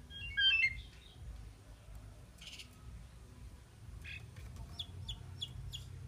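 Asian pied myna calling: a short burst of quick chirping notes jumping up and down in pitch about half a second in, then a run of short, high single notes near the end.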